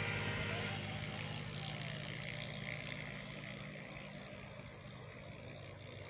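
An engine running steadily, its low hum slowly fading away, over a background hiss.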